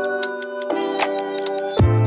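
Background music: sustained chords over a light, steady ticking beat, with a deep bass note coming in near the end.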